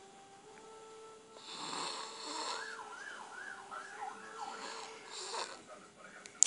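A boy snoring heavily: raspy breaths in his sleep. From about a second and a half in, a wavering whistling tone rises and falls several times a second, and another raspy breath comes near the end.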